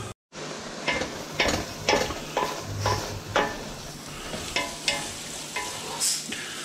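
Liver frying in a pan, sizzling, while a utensil stirs it and knocks and scrapes against the pan many times at an uneven pace. There is a short dropout at the very start.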